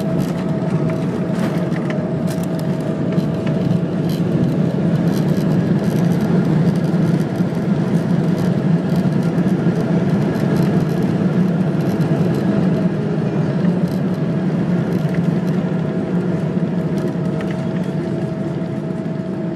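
Cabin noise of a Boeing 777-300ER rolling out on the runway after landing: a steady rumble from the GE90 engines and the wheels, with a held whine over it, easing slightly near the end as the jet slows.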